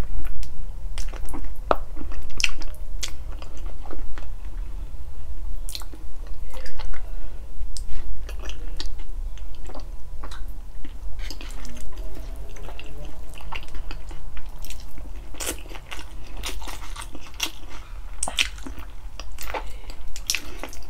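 Close-up chewing and biting of braised pork feet (balbacua): many short, irregular mouth and teeth clicks, with a steady low hum underneath.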